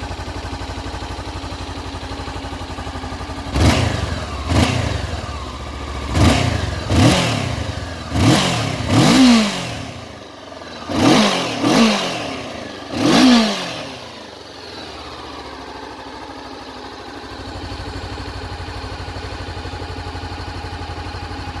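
Honda CB500X's 471 cc parallel-twin engine breathing through its stock silencer: idling steadily, then blipped about nine times, mostly in pairs, each rev rising and falling quickly, before settling back to idle.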